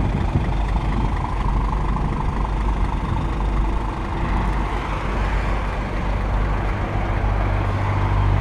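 Scania truck's diesel engine idling steadily, a constant low hum.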